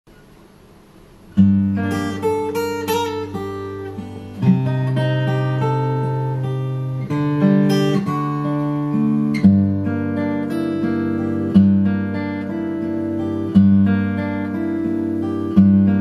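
Acoustic guitar playing the instrumental introduction to a song. It starts about a second and a half in, with a chord struck roughly every two seconds and single picked notes ringing between them.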